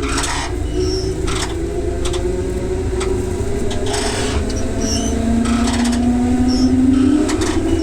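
Electric train running, heard inside the carriage: a steady wheel-on-rail rumble under a motor whine that rises slowly in pitch as the train gathers speed, with a few rail-joint clicks every second or so.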